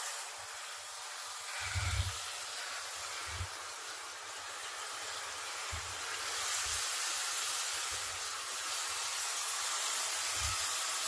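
Shower head spraying water into the tub of a KUPPET mini portable washing machine as it fills: a steady hiss that grows a little louder about six seconds in, with a few soft low bumps.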